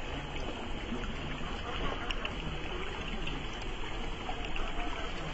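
Creek water trickling and flowing over rocks, mixed with the Traxxas TRX-4 crawler's drivetrain: short spurts of a low motor-and-gear whine and small clicks of tyres on stone.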